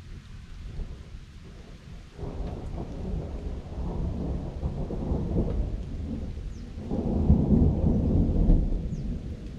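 Thunder rumbling in long rolls: one builds about two seconds in, and a louder one comes near seven seconds. Rain falls beneath it.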